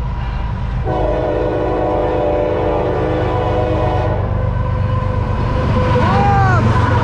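Freight diesel locomotive sounding its horn for a grade crossing, one long blast from about a second in to about four seconds, over the rumble of the approaching train. The engine rumble grows and is loudest near the end as the lead locomotive passes close by, with brief bending tones.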